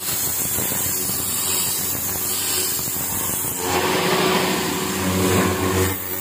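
High-pressure fresh-water jet blasting barnacles and weed off a wooden fishing boat's hull: a steady hiss with a machine hum under it. It grows louder and harsher about three and a half seconds in and eases back just before the end.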